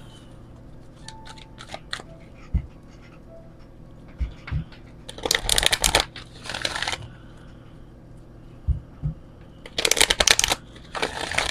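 A large oracle card deck being shuffled by hand: two bursts of rapid riffling clicks, about five seconds in and again near the end, with a few soft knocks of the cards in between.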